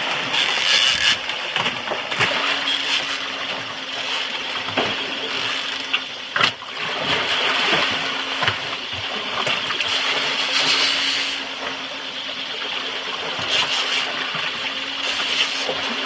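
Water rushing and splashing along the hull of a sailboat under way at sea, with wind, as a steady noisy wash. A faint steady hum comes in about two seconds in, and a few sharp knocks sound on deck, the loudest about halfway through.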